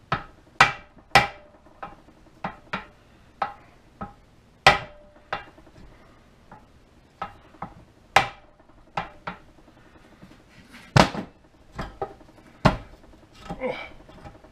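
Hammer tapping on the U-joint and yoke of a Ford F-150 driveshaft: about twenty irregular sharp metal knocks, some ringing briefly. The tapping frees a freshly installed U-joint that is still a little tight in one direction.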